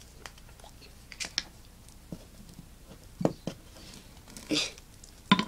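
Light clicks and taps of small objects being handled at a fly-tying bench, about eight in all, with the loudest click near the end.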